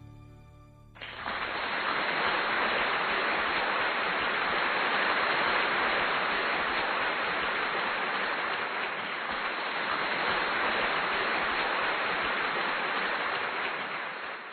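Audience applause, dense and steady, starting suddenly about a second in and holding at an even level throughout.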